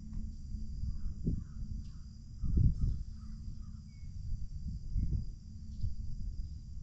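Wind gusting on the microphone over a steady high-pitched chorus of marsh insects. A bird calls a quick run of about seven notes about a second in, and there are two short chirps later.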